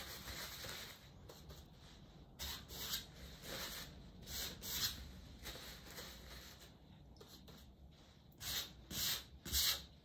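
Wide flat paintbrush stroking acrylic paint onto a stretched canvas: a run of short, scratchy swishes a few seconds in and another run near the end.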